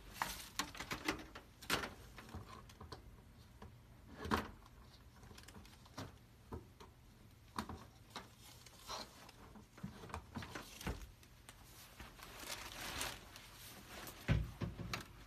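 Scattered light clicks and knocks, a few at a time, over a faint low steady hum, with one heavier thump near the end.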